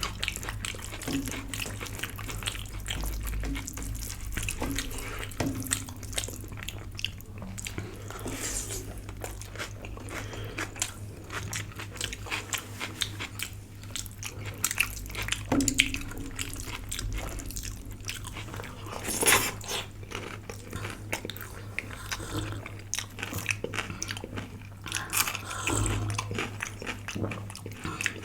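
Close-up eating sounds: biting, chewing and intermittent crunches as home-cooked Indian food is eaten, over a steady low hum.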